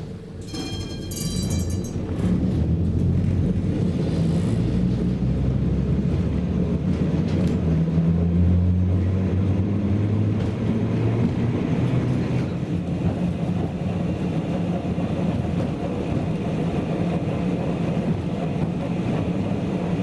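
Kirnitzschtal tramway car running along its track, heard from inside: a steady low rumble and hum from about two seconds in, after a brief high ringing tone near the start.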